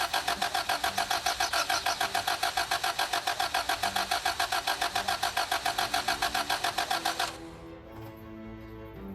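2003 Toyota Camry's engine cranking on the starter with an even pulsing of about six beats a second, not catching, then cutting off suddenly after about seven seconds: the engine turns over but will not start.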